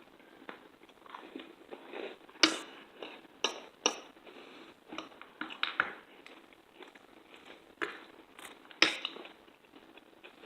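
A person chewing and biting food close to the microphone, with irregular crunchy clicks and smacks, a few of them sharper than the rest.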